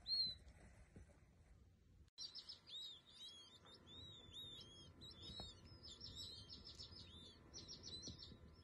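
A single loud peep near the start. After a brief break, a clutch of tiny chicks peeps continuously, with many short, high, arched chirps overlapping.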